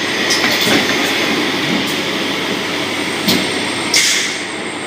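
Welding machine running with a steady mechanical noise, broken by a few short clacks and brief hisses, the loudest about three and four seconds in.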